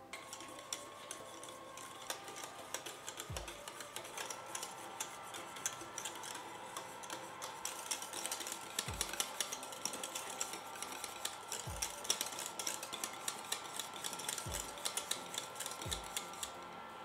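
Wire whisk stirring a thick, cooking custard cream in an enamelled saucepan: a steady rapid clicking and scraping of the wires against the pot, with a few dull low thumps. The cream is being brought to the boil and thickening under constant stirring.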